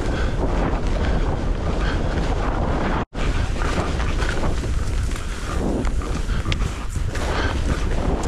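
Wind buffeting the microphone of a moving skier, over the hiss and scrape of skis running on thin, tracked snow. The sound cuts out for an instant about three seconds in.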